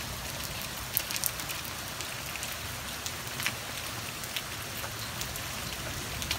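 Hail and rain falling in a steady hiss, with scattered sharp ticks of hailstones striking hard surfaces, a few about a second in and one near the middle.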